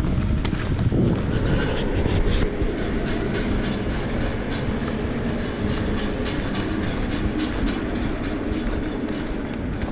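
A vehicle running steadily with a low rumble and a faint hum.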